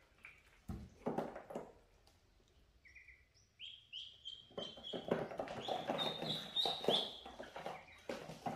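Ducklings peeping in short high notes, with water splashing and sloshing in shallow water. The splashing gets louder in the second half.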